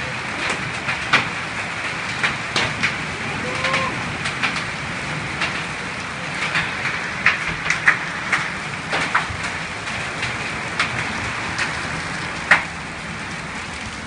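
Heavy rain pouring steadily, with irregular sharp drops and splashes striking close by; the loudest strike comes about twelve seconds in.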